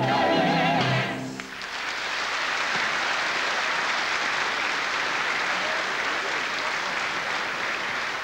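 A sung ensemble number with orchestra ends on a held, wavering note about a second in, and a theatre audience then applauds.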